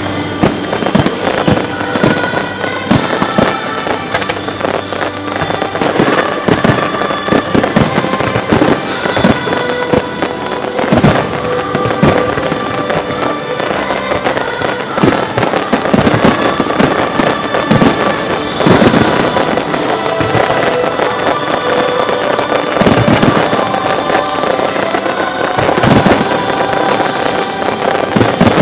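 Fireworks display: a continuous run of aerial shell bangs and crackling, over music.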